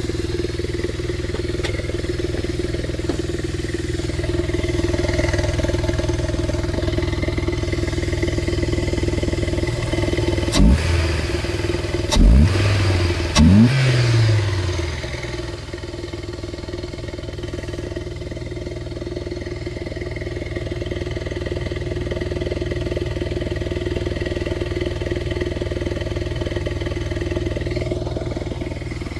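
Opel Vectra B 2.0 16v X20XEV four-cylinder engine running with the air filter off, idling steadily apart from three short revs in the middle. It makes a strange noise from inside the engine that does not follow engine speed, which the owner thinks could be connecting-rod or crankshaft bearings, camshafts or the oil pump.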